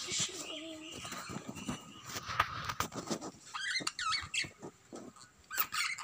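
Caged pet birds chirping, with quick rising and falling calls in clusters a little past the middle and again near the end, among light clicks and knocks.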